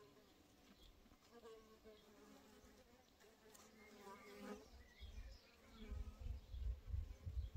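Faint buzzing of flying insects visiting the flowering shrub: a wavering hum that comes and goes. A low, uneven rumble takes over in the last couple of seconds.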